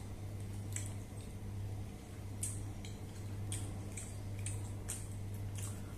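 A person eating rice by hand: a scattered series of soft, wet smacks and clicks from chewing and fingers working the food, about seven in all, over a steady low hum.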